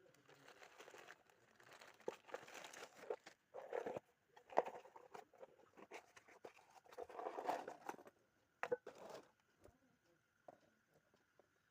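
Packaging crinkling and rustling in irregular bursts as a parcel is opened by hand, with a few small clicks. The handling stops about nine seconds in, leaving a faint steady high tone.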